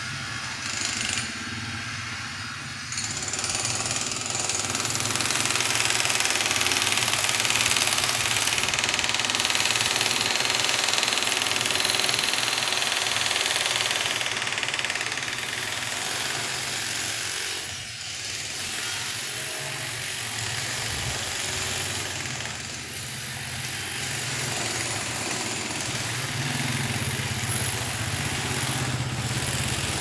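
Electric demolition hammer breaking up a reinforced concrete slab, mixed with vehicle engines on the street.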